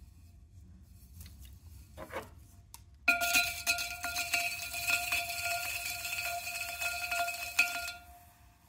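A rib pressed against a wet clay cylinder on a spinning pottery wheel, scraping with a gritty crackle and a steady ringing tone. It starts abruptly about three seconds in and stops about a second before the end.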